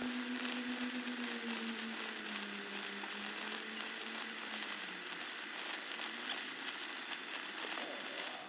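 Stick (SMAW) welding arc crackling and sizzling steadily as a bead is run. A low hum under it slowly sinks in pitch and fades out about five seconds in.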